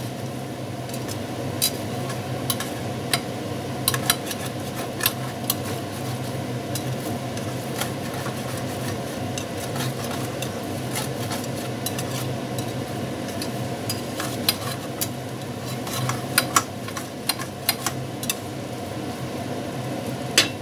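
A metal slotted turner stirring chicken strips in an enamel frying pan, knocking and scraping against the pan in irregular clicks, over a steady low hum and a faint sizzle of the cooking food.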